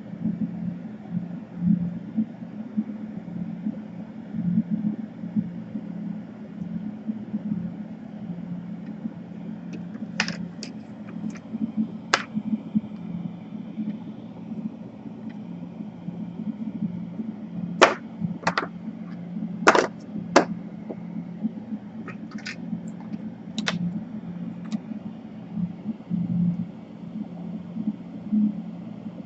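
A steady low hum runs throughout, with sharp clicks of small tools being handled during laptop repair work: a few about ten to twelve seconds in, then a series from about eighteen to twenty-four seconds in.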